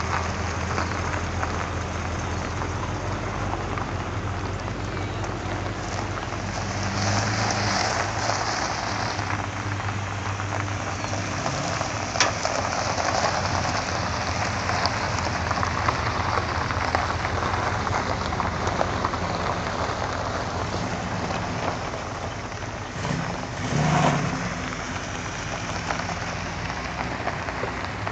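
Cars driving slowly past one after another on a gravel drive: engines running at low revs over a steady crunch and hiss of tyres rolling on loose gravel, swelling briefly as each car goes by.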